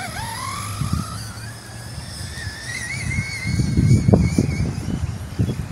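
Redcat Kaiju RC monster truck's brushless electric motor whining, rising steadily in pitch as the truck accelerates away, then holding a high, wavering whine. In the second half, a louder low rumble of wind buffeting the microphone comes in.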